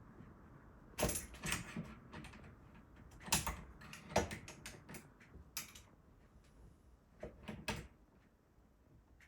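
A locksmith working at a jammed, broken door lock and handle to open it: irregular metallic clicks, rattles and knocks of the handle, latch and tools, about eight in all.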